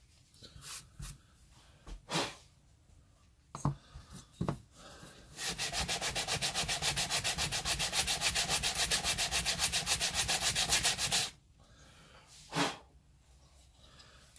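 Sandpaper rubbed by hand over the edges of plywood pieces, taking the edges off. A few scattered rubs first, then about six seconds of quick, even back-and-forth sanding strokes, several a second, which stop abruptly. One more short rub comes near the end.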